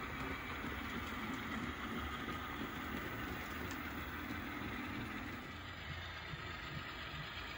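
Model freight train running along layout track: a steady rumble of rolling wheels and locomotive motors. The lower part of the rumble fades a little over halfway through.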